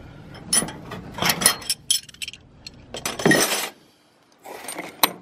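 Chrome steel socket extensions and other hand tools clinking and clanking together as they are picked up and set down, a series of separate metal clinks with the loudest about three seconds in.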